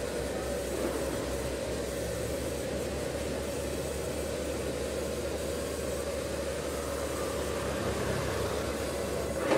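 Sawmill band saw and its motor running steadily with a low hum as timber is fed along the carriage.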